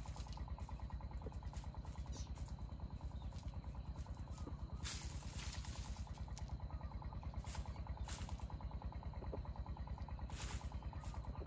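An engine running steadily with a rapid, even pulse, joined by a few short bursts of hiss.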